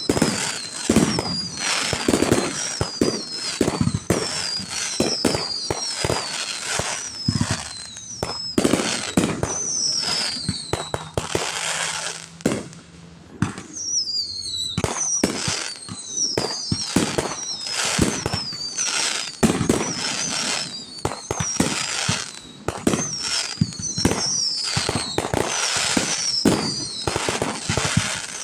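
Fireworks display: a dense run of bangs and crackles with many short falling whistles over them, easing off briefly about halfway through before picking up again.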